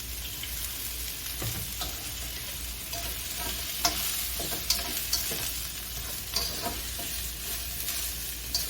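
Mushrooms and shallots sizzling as they sauté in hot oil in a pan, with a spatula scraping and clicking against the pan now and then.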